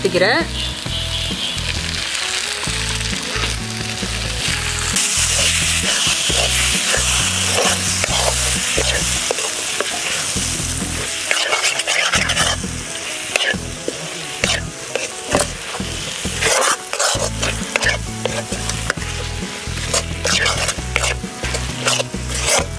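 Ground coconut and cashew paste sizzling in hot onion-tomato masala in a kadai. A steel ladle stirs it, and from about halfway on it scrapes and clicks sharply and often against the pan.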